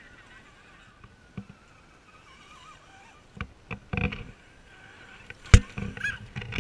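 A run of close knocks and thumps, a cluster of them about four seconds in and the loudest a single sharp knock about five and a half seconds in.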